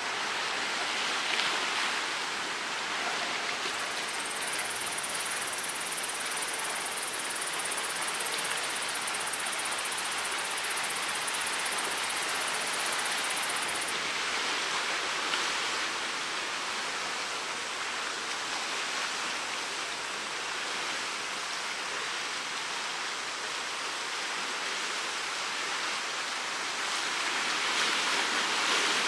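Steady, even rush of choppy sea water, a continuous hiss.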